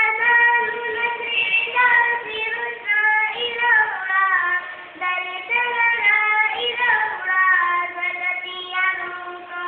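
A girl singing solo, without accompaniment: a single voice moving through melodic phrases with long held notes.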